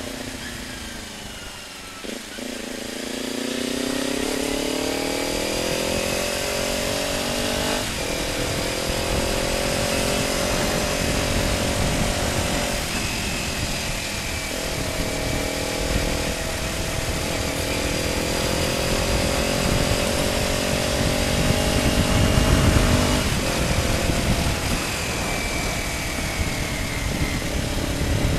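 Kawasaki Ninja motorcycle running through an Akrapovic slip-on exhaust while riding. Its pitch falls for the first couple of seconds, then climbs as the bike accelerates, with short breaks at gear changes, over a low rumble of wind.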